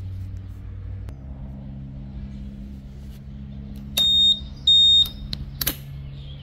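Two short, high-pitched electronic beeps about half a second apart from a Honda Forza 350 scooter after its ignition is switched on, over a low steady hum. A sharp click follows.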